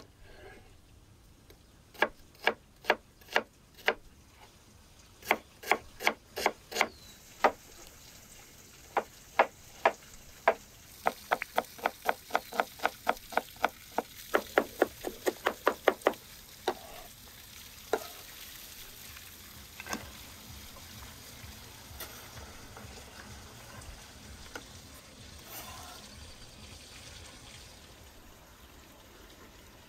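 Chef's knife chopping an onion on a wooden cutting board: sharp knocks of the blade striking the board, first in short groups, then a fast run of about four chops a second, then a few scattered knocks.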